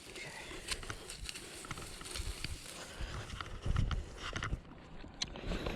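Irregular clicks and taps with a few dull thumps about two thirds of the way through: handling noise while a just-landed striped bass is dealt with.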